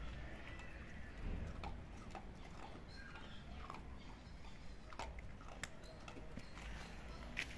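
A dog and a kitten crunching dry pet-food kibble off concrete: scattered small crunches and clicks, a few sharper ones about five seconds in and near the end.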